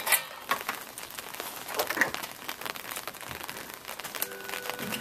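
Steady rain with a dense patter of drops ticking and crackling close by. A few steady held tones come in near the end.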